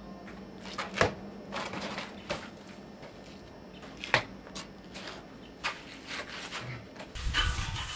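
Footsteps and shoes scuffing and scraping on gritty concrete and loose gravel, with a few sharper knocks.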